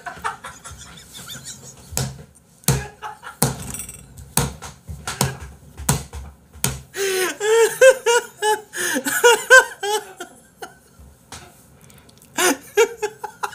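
A man laughing hard in repeated bursts, the loudest near the middle and a last burst near the end, with a run of sharp smacks before the loudest laughter.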